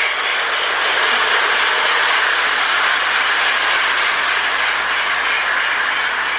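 Lionel toy steam locomotive running on track, its MPC Sound of Steam tender board giving a steady steam-chuff hiss over the motor and wheels on the rails.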